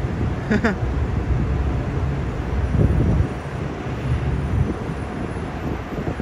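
Low, steady rumble of a heavy vehicle's engine, which eases off about three seconds in.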